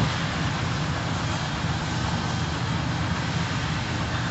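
Steady low engine rumble under a wide hiss from vehicles running at the scene.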